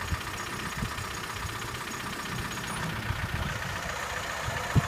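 A 4x4's diesel engine idling steadily, with one short knock near the end.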